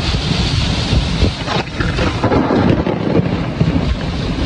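Violent rainstorm: heavy rain and strong storm wind make a loud, unbroken low rumble and hiss, with a few sharper gusts or spatters about one and a half seconds in.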